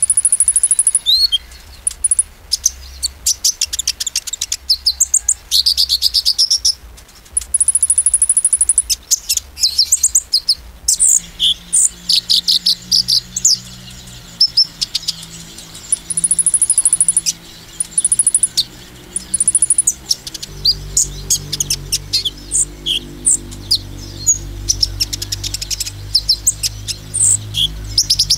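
Male sunbird (konin) singing in rapid bursts of high, thin chirps and fast trills, repeated every second or so, the shrill challenge song used to provoke other konins. A low steady hum comes in about halfway and grows louder later.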